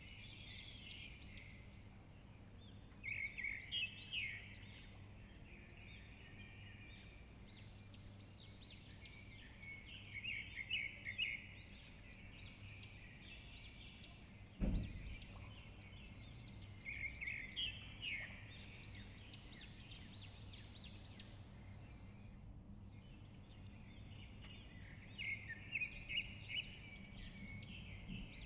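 Birds chirping in four short clusters of rapid high chirps a few seconds apart, over a steady low hum, with a single dull thump about halfway through.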